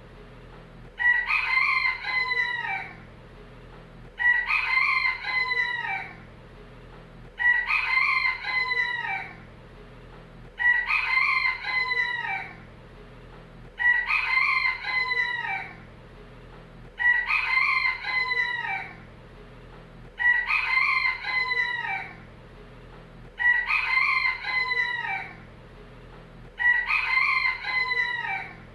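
A rooster crowing cock-a-doodle-doo, the same crow repeated nine times at even intervals about three seconds apart, each crow lasting about two seconds.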